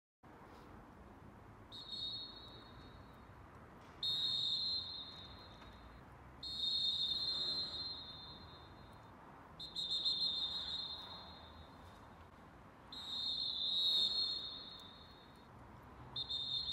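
Fox 40 Classic pealess referee whistle heard from a distance across an empty stadium, blown six times: a short first blast, then blasts of a second or more, with the last one, near the end, broken up in a wavy, choppy style.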